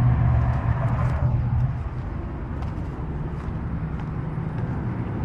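Car engine running at low speed, heard from inside the cabin as a steady low hum while the car rolls slowly.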